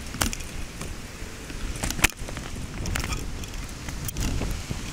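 Low handling and wind noise on the microphone of a rifle-mounted camera as it swings about, with a few sharp clicks or cracks, the loudest about two seconds in.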